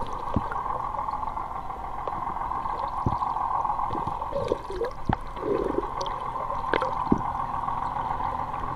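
Underwater sound picked up by a camera submerged among tuna: a steady hum with scattered sharp clicks, and a few bubbling gurgles about halfway through.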